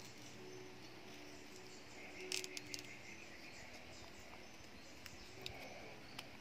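Faint crackling clicks of a young coconut palm's leaf sheath being peeled from the stem with a small knife, a quick cluster about two and a half seconds in and a few single clicks near the end.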